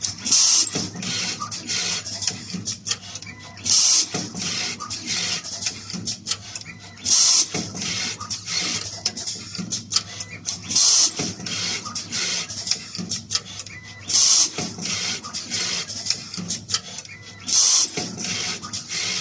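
Automatic wire soldering machine running: rapid clicking and ticking of its mechanism, with a short, loud hiss about every three and a half seconds, six times.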